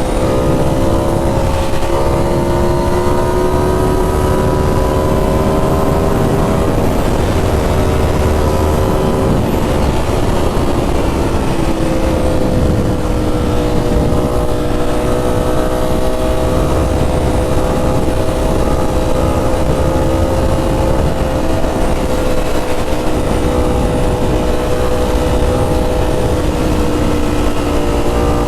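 Ducati Streetfighter V4 S's V4 engine through an SC Project 2-1-2 titanium exhaust, running under way at a fairly steady engine speed. The pitch climbs slowly for the first several seconds, drops back about seven to twelve seconds in, then holds steady, over a low rumble.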